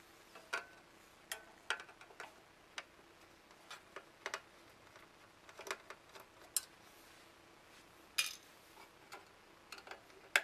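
Irregular small clicks and ticks of a small screwdriver working on the screws of a pager system's plastic and metal base unit, with knocks as the case is handled.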